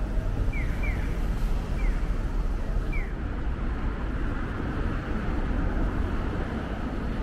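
City street traffic noise, a steady low rumble. A few short, high falling chirps sound in the first three seconds.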